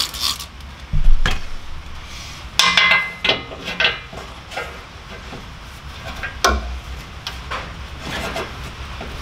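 A short hiss of a trigger spray bottle squirting soapy water, then a steel pry bar knocking and scraping against a truck's exhaust hanger as it is levered to pop the rubber hanger off. The loudest sound is a knock about a second in, followed by a squeaky scrape and another knock later.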